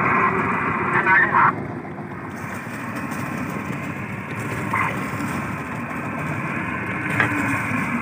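Fishing boat's engine running steadily, with wind and water noise over it.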